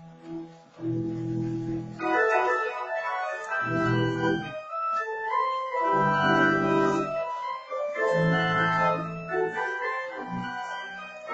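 Pipe organ playing held chords, with bass notes coming and going beneath; the sound grows fuller, with many more notes, about two seconds in.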